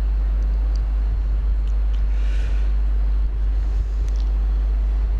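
Steady low electrical hum in the microphone and PA line, with a faint short hiss about two seconds in.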